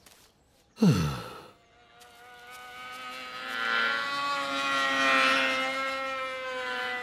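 A short grunt falling steeply in pitch about a second in. Then a steady, even-pitched engine drone comes in and grows gradually louder, like an approaching motor.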